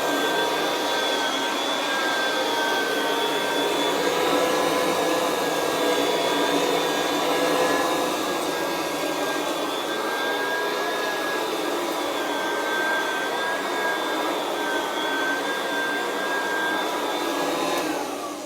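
Kirby Classic III upright vacuum running over carpet with a steady motor whine, fitted with a carpet-fluffer buffer brush roll. Near the end it is switched off, and the whine falls in pitch and fades as the motor winds down.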